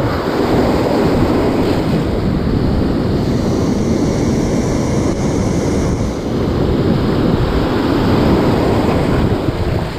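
Heavy surf breaking and washing around the wader, a steady loud rush, with wind buffeting the microphone.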